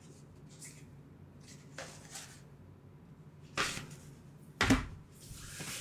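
Cardboard game boards being handled and set down on the table: faint rustling, a sliding swish about three and a half seconds in, then a soft thud a second later.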